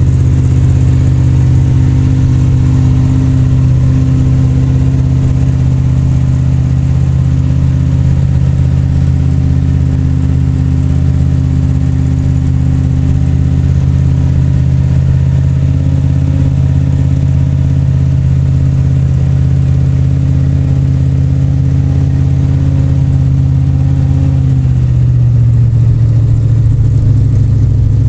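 1971 Plymouth 'Cuda's V8 idling with a steady rumble while warming up after a cold start following a week of sitting. About 25 seconds in, the idle drops a little lower.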